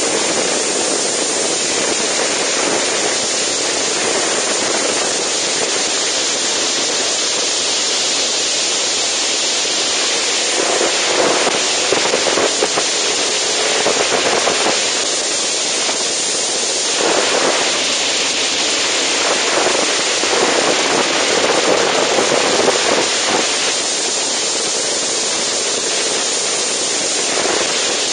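Wind rushing over the microphone of a camera on a motorcycle at riding speed: a loud, steady rush that swells a little in a few stretches.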